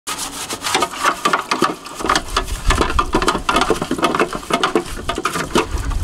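Plastic fridge drawer being handled and rinsed in a stainless steel sink: dense, irregular clicking and clatter, with a low rush of water joining about two seconds in.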